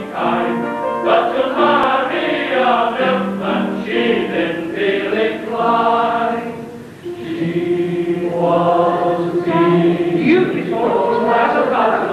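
Male voice choir singing, with a short break about seven seconds in before the next phrase begins on held notes.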